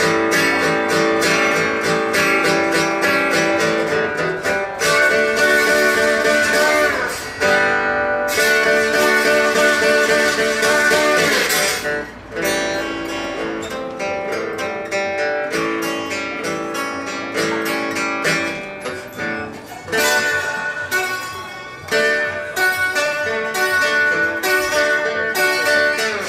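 Instrumental break of a live blues song: guitar playing over strummed chords, with a few notes bent in pitch.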